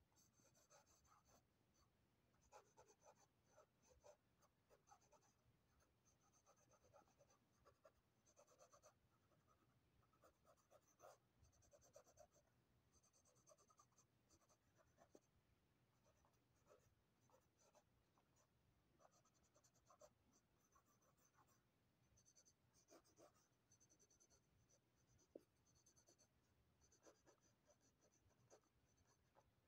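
Faint scratching of a graphite pencil on sketchbook paper, in short irregular strokes with brief pauses, and one sharper tick near the end.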